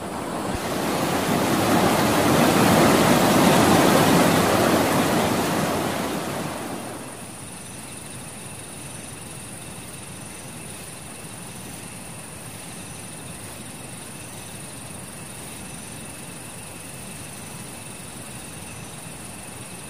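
Rushing water of a fast, muddy stream in spate, swelling up over about three seconds and fading away by about seven seconds in. After that, a steady, much quieter night background with insects chirping.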